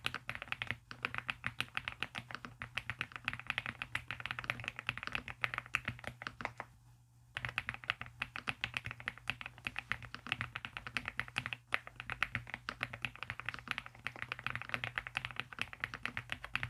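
Mechanical keyboard being typed on fast and continuously, a rapid stream of key clacks, with a pause of about a second a third of the way through. A steady low hum sits underneath.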